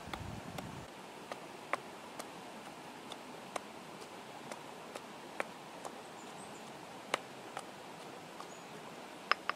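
Stone pestle pounding chillies in a stone mortar: light, sharp knocks at about two a second, with a pair of louder knocks near the end. A brief low rumble comes in the first second.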